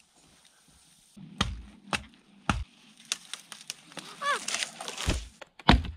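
Dry dead wood cracking and knocking, as dead branches and poles are broken and handled. There are three sharp snaps about half a second apart after the first second, and a few more near the end.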